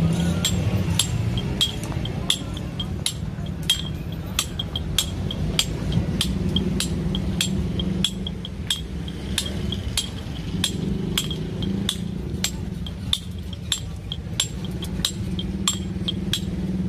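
Hand hammer striking a steel chisel into a block of stone, a steady run of sharp metallic chinks about two to three a second, as the stone is chipped into a mortar. A steady low hum runs underneath.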